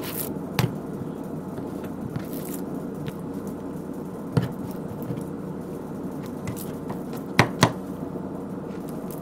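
Santoku knife tip knocking on a cutting board while scoring raw pork cutlets: a few sharp taps, two in quick succession near the end, with brief scraping, over steady background noise.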